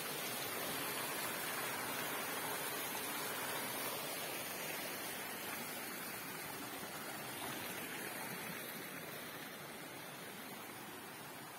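Shallow rocky stream rushing and splashing over boulders, a steady hiss of running water that grows a little quieter in the last few seconds.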